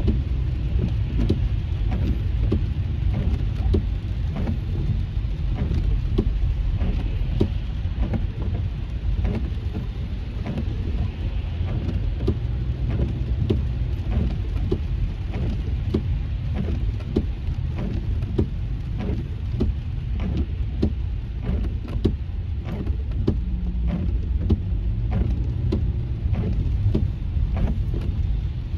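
Heavy rain striking a car's windshield and roof, heard from inside the cabin as many scattered sharp taps over a steady low rumble of tyres on the wet freeway.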